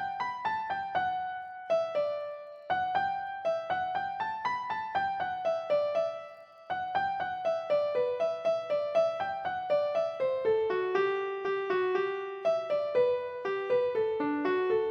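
Background music: a light piano or electric-piano melody of quick, evenly spaced notes, with two brief pauses, one about two seconds in and one about six seconds in.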